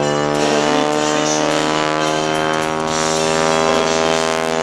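Boeing Stearman biplane's 450-horsepower nine-cylinder radial engine and propeller running at power in a vertical climb, a steady drone of many even tones.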